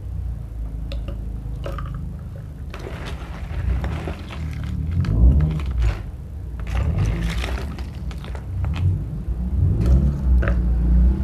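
Ice cubes clinking and scraping against a metal spoon and a plastic bowl as they are scooped out, with sharp clicks as they drop into a glass jar, over low background music.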